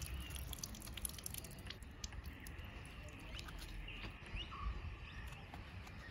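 Faint outdoor ambience: a few short, high bird chirps over a steady background hiss, with scattered light clicks.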